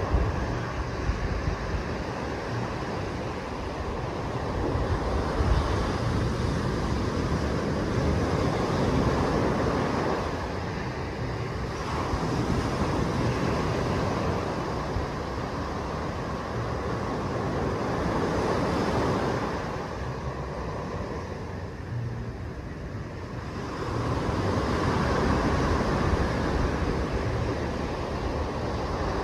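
Small surf breaking and washing up a sandy beach, a steady rush that swells and eases as each wave comes in, every several seconds. A low rumble of wind on the microphone runs underneath.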